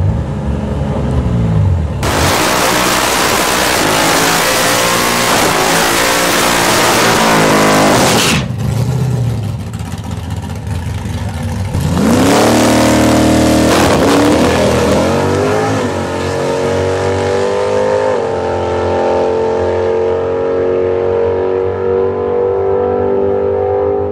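Drag-racing car engines at full throttle on the strip. Engine tones fall at first. From about two seconds in to about eight, a very loud hard run fills the sound. Another loud burst with rising revs comes around twelve seconds, then an engine keeps running steadily with its pitch slowly creeping up.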